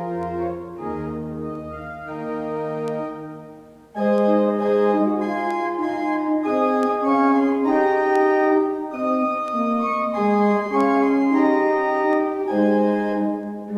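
Church organ playing held chords, with a melody moving over them and low bass notes at first. About four seconds in the music dips away, then comes back abruptly and much louder.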